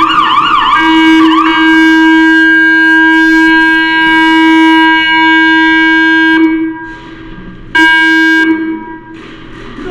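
A horn sounding the end-of-game signal: one long, steady, loud blast of about six seconds that wavers in pitch at the start, followed by a short second blast.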